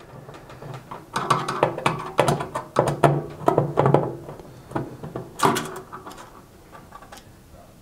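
Screwdriver undoing the mounting screws of a microwave turntable motor in the sheet-metal casing: a run of small metal clicks and scrapes, dying away near the end.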